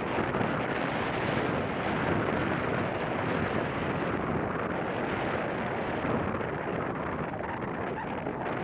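Steady rushing wind blowing across the microphone.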